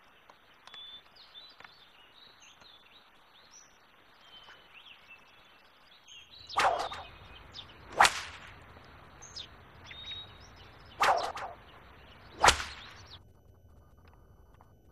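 Long ceremonial whip cracked four times in two pairs, starting about six and about eleven seconds in, the second stroke of each pair the sharpest crack. These are the court's whip cracks heralding the emperor's arrival. Faint bird chirps come before them.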